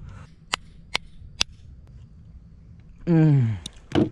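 Cooked mud crab shell being cracked by hand: three sharp snaps in the first second and a half, and another near the end. About three seconds in, a man lets out one drawn-out wordless sound that falls in pitch, the loudest thing here.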